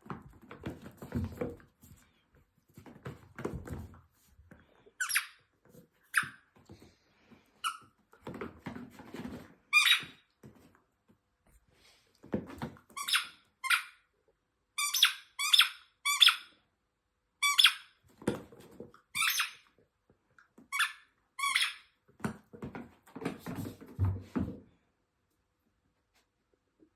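Squeaky dog toy squeaked more than a dozen times in short bursts while an Italian greyhound plays with it, between low scuffling and thumping sounds.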